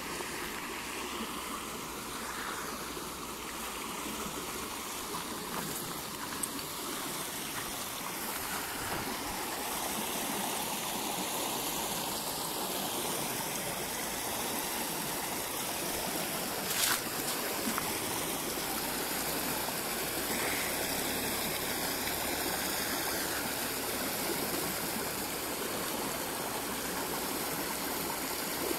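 Steady rush of flowing water in a muddy drainage ditch, with one short click about 17 seconds in.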